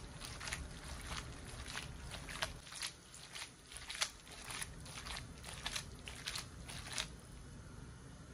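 Orecchiette with pancetta and mushrooms being tossed in a frying pan, the pasta landing back in the pan with short, sharp sounds about twice a second, until about seven seconds in.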